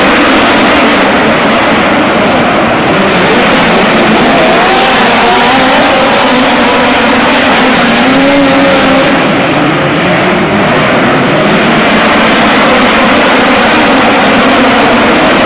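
A pack of midget race cars at racing speed, many engines blending into one loud, continuous drone whose pitches waver up and down as the cars go through the corners.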